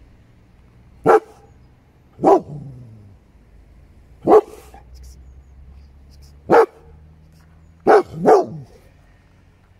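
Dog barking: six short single barks, about one to two seconds apart, the last two in quick succession near the end.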